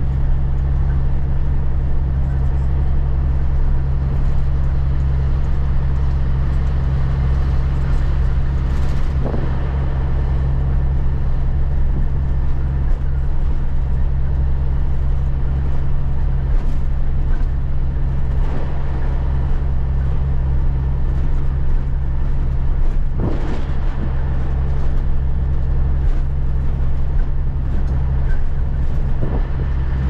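Caterpillar 3406B inline-six diesel of a cabover semi running with a steady low drone, heard from inside the cab while the truck drives. A few brief knocks or rattles stand out over the engine.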